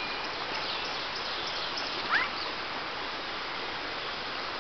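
Steady rush of a shallow creek flowing over rocks. A few short rising chirps come through it, with one louder rising call about two seconds in.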